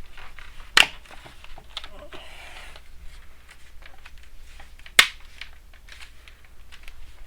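Plastic laptop screen bezel being pressed back on, its clips snapping into place with two sharp snaps, about a second in and again about five seconds in. Between the snaps come lighter plastic clicks and a brief rubbing of plastic on plastic.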